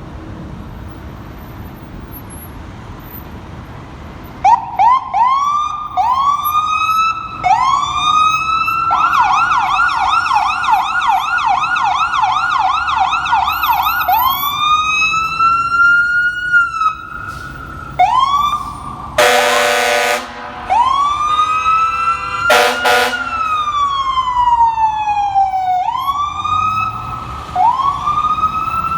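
Fire engine's siren running through its patterns: short rising wails starting about four seconds in, a rapid warble, slower wails and one long falling wail, over the truck's engine and road noise. The air horn cuts in twice about two-thirds of the way through, one long blast and one short.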